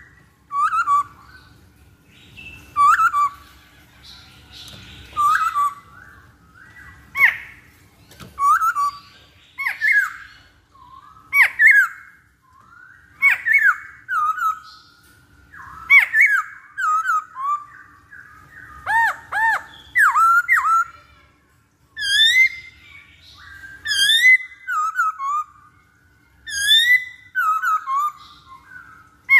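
Masked laughingthrush calling in short, loud whistled phrases about every one and a half to two seconds, each note sliding up and down in pitch. The phrases come thicker and more tangled in the second half.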